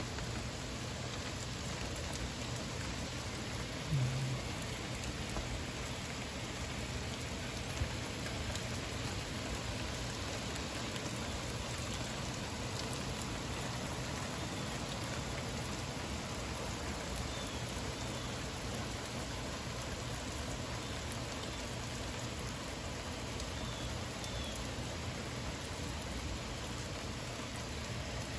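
Heavy thunderstorm rain falling steadily on pavement and lawns, an even hiss, with a single brief low bump about four seconds in.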